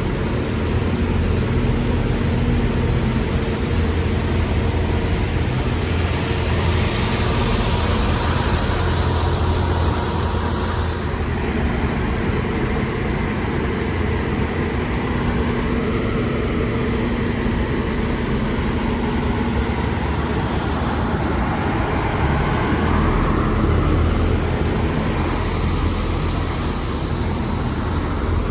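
Road traffic: a steady low vehicle engine hum with tyre and road noise, swelling louder twice as traffic goes by.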